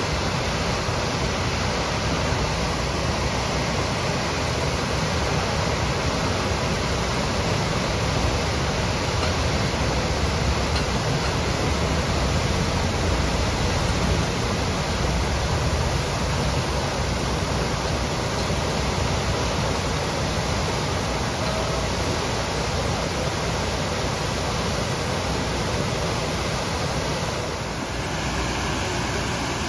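Water gushing from a fire hydrant that has been sheared off by a vehicle: a tall column spraying up and raining down onto the street, heard as a loud, steady rush.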